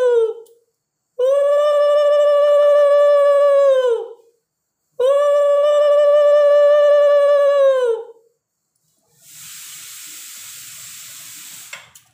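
Conch shell (shankha) blown in long, steady blasts, each sagging in pitch as the breath runs out: one blast ends about half a second in, then two full blasts of about three seconds each follow. A quieter steady hiss runs for about three seconds near the end.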